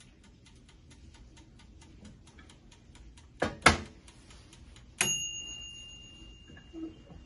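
Rapid, even ticking, about six ticks a second, which fades out. Then two loud clanks a third of a second apart as the bubble waffle maker's hinged cast plates are closed, and about a second later a sharp metallic strike that rings on clearly for about two seconds.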